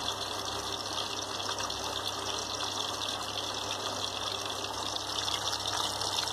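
Masala-coated fish steaks shallow-frying in hot oil in a pan, a steady, even sizzle.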